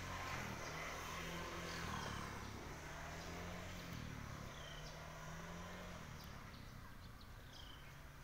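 Faint outdoor ambience: a low steady hum with a few short, high chirps scattered through it.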